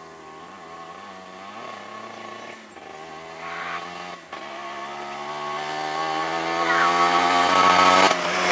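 A small motorcycle's engine revving and coming closer, its pitch rising and getting steadily louder until it passes close by near the end.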